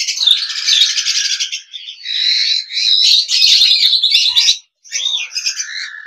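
Black-headed caiques calling: a steady run of high-pitched chirps and whistles, with short breaks about two seconds in and near five seconds.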